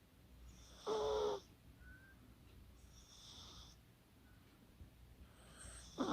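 Chihuahua snoring in its sleep. Two loud snores come about a second in and near the end, each a pitched tone over a high hiss, with a softer hissing breath between them.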